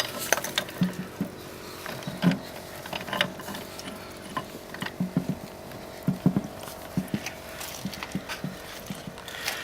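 Scattered light clicks and knocks of metal as a tap reseating tool is screwed into the tap body, over a faint steady hum.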